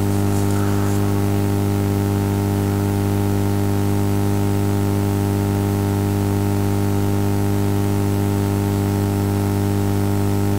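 Steady electrical hum, a low buzz with a stack of higher overtones, over a constant hiss of background noise.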